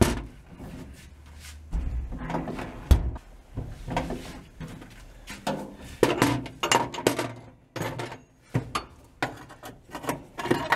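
Ball-peen hammer tapping on bent metal at the parking brake lever opening in the cab floor, straightening it: irregular sharp knocks with pauses, a quick run of them about six seconds in and more near the end.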